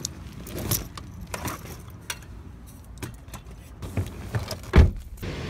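Handling noise from a phone camera being moved about: scattered clicks, knocks and rustles, with one loud thump near the end.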